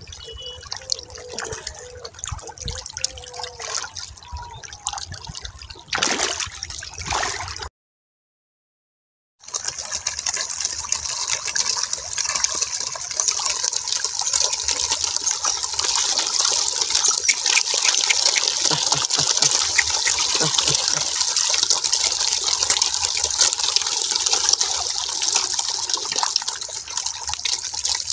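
Running water trickling and splashing steadily. About eight seconds in, a short stretch of dead silence breaks it, and after the silence the water is louder and more even than before. Before the silence the sound is fainter and more mixed, with a few brief faint tones.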